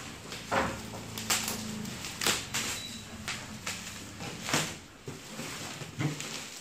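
Bubble wrap and plastic packaging rustling and crinkling as a cardboard box is unwrapped by hand, with several sharp crackles.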